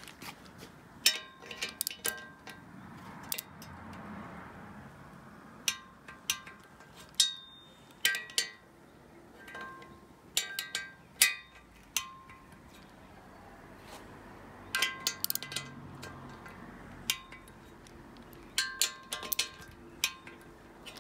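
Metal hand tools and small steel engine parts clinking and tapping against each other while the piston cooling jets are bolted into an engine block: scattered clusters of sharp clicks, some ringing briefly.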